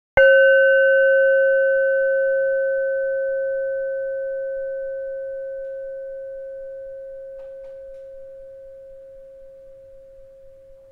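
A single struck bell-like tone, ringing at one clear pitch and slowly fading away, its few higher overtones dying out within the first few seconds.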